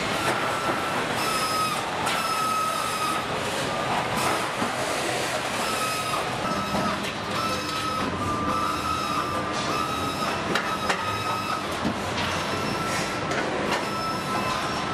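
Factory floor machinery running with a steady din. A high whine comes and goes every second or two, and scattered sharp clicks and clanks sound, a pair of them close together near the eleventh second.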